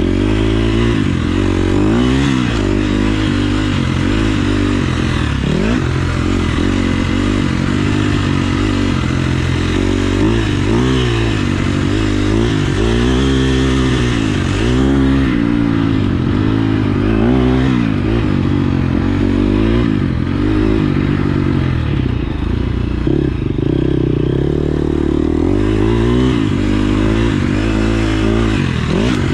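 KTM 350 SX-F single-cylinder four-stroke motocross engine being ridden hard, its pitch rising and falling over and over as the throttle is opened and closed and gears change, under a steady rushing noise.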